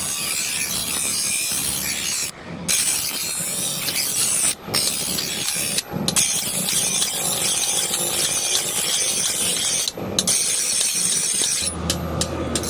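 Steady harsh rasping noise of a tool working, broken by several brief dropouts.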